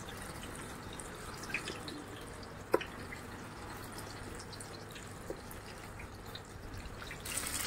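Hot oil in a kadhai sizzling and crackling faintly as besan-battered tomato slices are dropped in one at a time, with scattered small ticks. A single sharp tap about two and a half seconds in, and the sizzle grows louder near the end.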